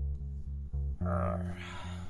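Background guitar music with a low line that pulses several times a second, and a brief rush of noise about halfway through.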